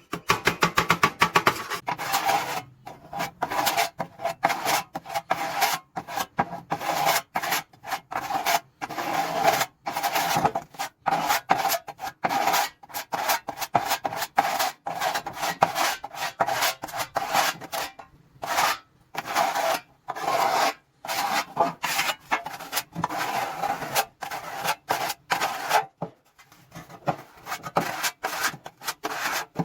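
Rapid back-and-forth abrasive hand strokes rasping over a rusty steel toolbox part, several strokes a second, with a short pause near the end.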